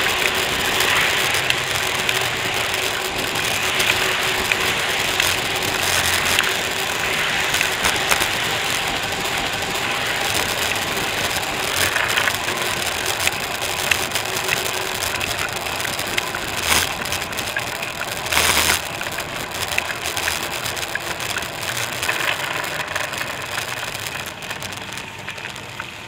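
Bicycle riding on a brick-paved cycle path beside a busy road, heard from a camera on the bike: a steady rush of passing car traffic and riding noise, with small rattles and knocks as the bike goes over the paving. A couple of brief louder bursts come about two-thirds of the way in.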